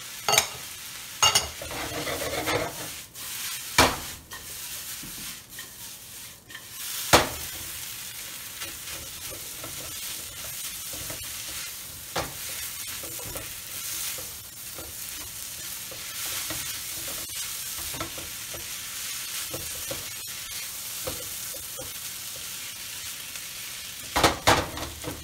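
Fried rice sizzling in a nonstick wok while a spatula stirs and turns it, with sharp knocks of the spatula against the pan now and then and a quick cluster of them near the end.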